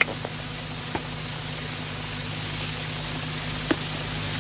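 Background hiss with a steady low hum and a few faint clicks: the noise floor of an old 1960s speech recording.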